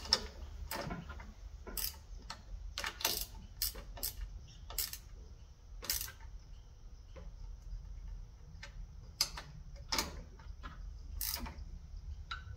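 Irregular sharp metallic clicks and taps of a wrench working the mounting bolts of a new electric starter, over a faint steady low hum.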